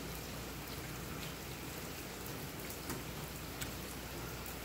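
A few faint clicks of small metal brake proportioning-valve parts being handled and fitted together by hand, over a steady hiss.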